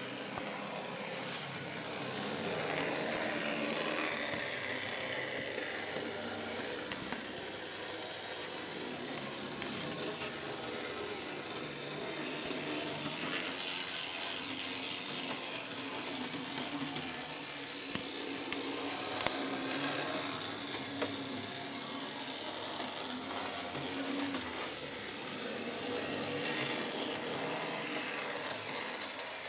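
Model tram power unit running along the track: an ex-Tenshodo twin-shafted motor with a flywheel driving both bogies through worm gears and a neoprene-tube flexible drive, giving a steady mechanical whirr with gear chatter that swells and eases a little as it goes. A couple of sharp clicks come a little past the middle.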